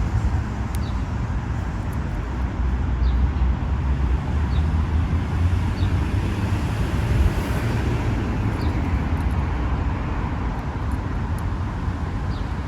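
Steady outdoor traffic noise with a deep low rumble and a few faint ticks.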